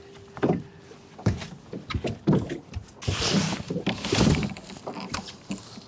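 A freshly netted king salmon thrashing in the landing net inside a small boat: irregular thumps and knocks against the hull, with a rushing, splashing burst about three seconds in.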